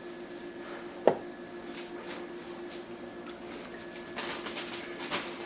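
Towel wiping and squishing in the wet drain sump of a countertop dishwasher as standing water is soaked up, with one sharp knock about a second in, over a steady low hum.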